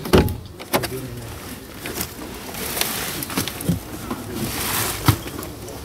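Truck cab door being unlatched from the inside, a sharp click and knock, then scattered knocks and thumps as the door opens and someone starts to climb out. People talk in the background.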